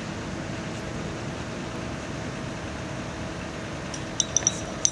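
Steady outdoor background noise, then a quick run of four or five light, high clinks near the end.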